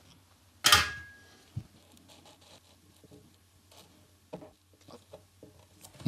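A sudden sharp noise that fades over about half a second, then faint intermittent scraping and ticking from a soldering iron's chisel tip working and melting the plastic along a crack in a computer case.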